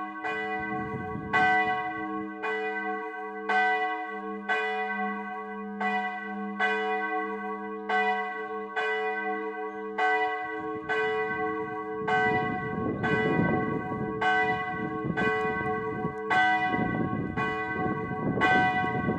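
Church bell in a wooden bell tower ringing, struck steadily about once a second, each stroke over a lasting hum. The lowest hum fades out about halfway through, and a rushing noise joins in from then on.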